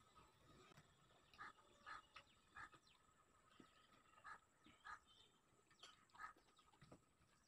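Near silence: faint room tone with about six soft, short sounds scattered through it.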